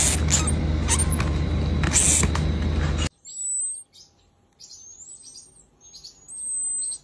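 Loud rustling noise with a few clicks, cut off suddenly about three seconds in. Then a baby pygmy marmoset calling in thin, high-pitched whistles: three long drawn-out whistles, some rising slightly.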